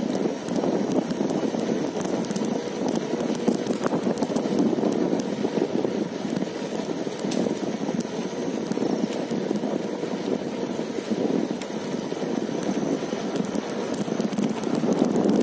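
Wind buffeting the phone's microphone while riding a bicycle along a road: a steady, fluctuating rush of noise with no clear pitch.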